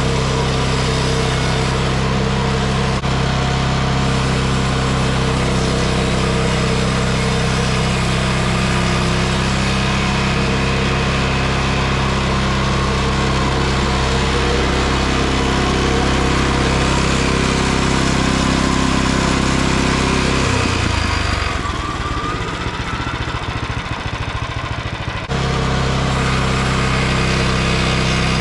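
Small gas engine of a Frontier OS23 bandsaw mill running steadily. About twenty seconds in, its even tone breaks up and drops a little for about five seconds, then comes back as before.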